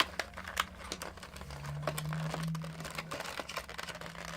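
Scattered light clicks and ticks of plastic toy packaging being handled as a small Tsum Tsum figure is worked out of its pack, with a faint low hum beneath.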